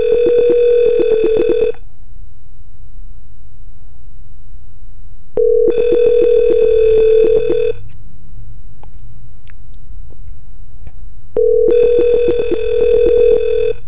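Softphone ringing for an unanswered incoming SIP call: a trilling electronic ring about two seconds long, heard three times, one every six seconds.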